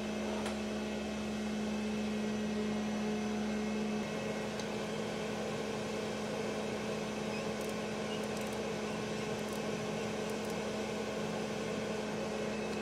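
Crankshaft grinder running steadily with its wheel backed off the crankshaft, not grinding: a steady machine hum with a low tone. A few faint light ticks come near the middle.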